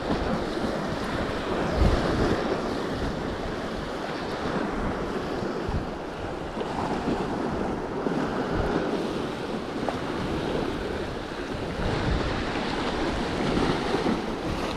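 Sea surf washing and breaking against rocks, a steady rushing wash with swells, mixed with wind buffeting the microphone.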